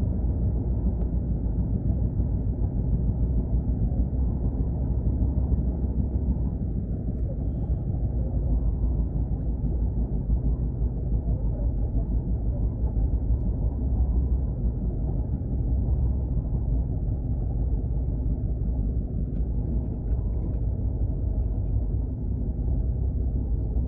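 Steady, loud rumble of a moving train, heard from inside the coach.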